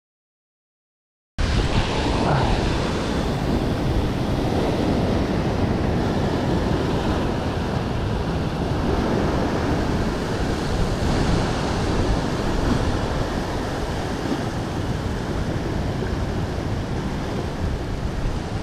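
Heavy ocean surf churning and washing over rocks close by, with wind buffeting the microphone. It cuts in abruptly after a second or so of silence and then runs on as a steady rush.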